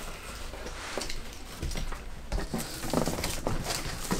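Cardboard shipping box being handled and unpacked: scattered knocks and rustling as its flaps are worked and the contents shifted.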